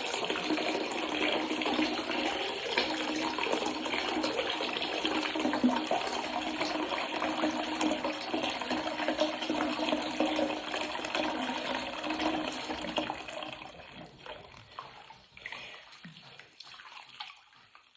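Tap water running steadily into a plugged sink to fill it with soapy water, shut off about three-quarters of the way through; after that only faint small splashes and clicks of water being stirred.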